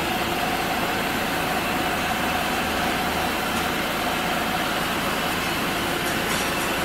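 Vehicle engine idling steadily: a constant running noise with no change in level, and a faint steady whine over the first few seconds.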